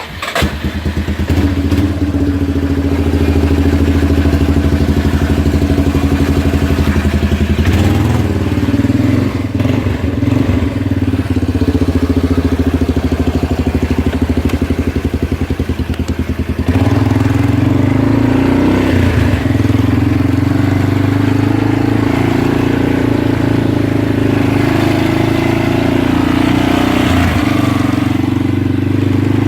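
Four-wheeler (ATV) engine running steadily, its engine note shifting a couple of times.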